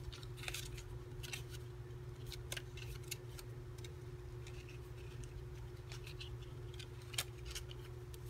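Small paper pieces rustling and ticking as a stack is flipped through and handled, in short irregular clicks, over a steady low hum.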